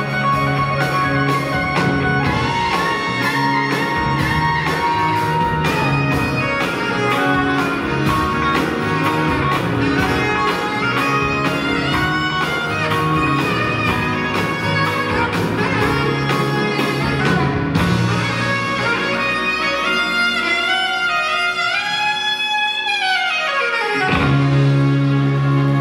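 Live rock band with a saxophone solo over electric and acoustic guitars, bass and drums. A few seconds before the end, the bass and drums drop away under a falling saxophone run, then the full band comes back in.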